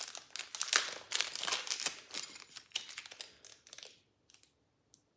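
Thin plastic packaging crinkling and rustling in the hands as a small package is opened. The crinkling is dense for about four seconds, then stops.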